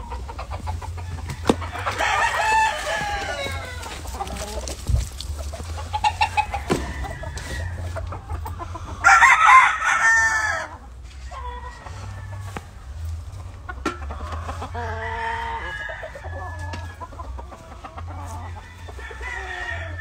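Gamecock roosters crowing from their cages, several crows one after another with clucking between them; the loudest, longest crow comes about nine seconds in.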